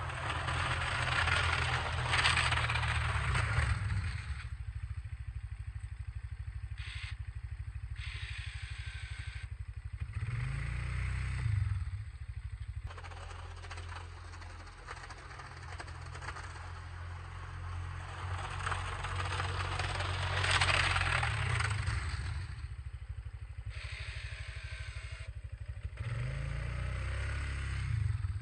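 1997 Polaris Sportsman 500 ATV's single-cylinder engine running as it plows wet, heavy snow. Twice the steel plow blade scrapes loudly along the pavement, at the start and again past the middle. Between the pushes the engine revs up and falls back twice.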